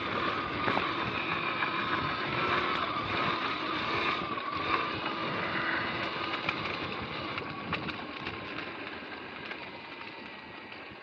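Sur-Ron X electric dirt bike under way: a steady motor and drivetrain whine over tyre noise on wet grass and wind on the microphone. The whine sinks a little in pitch and the whole sound fades over the second half as the bike slows.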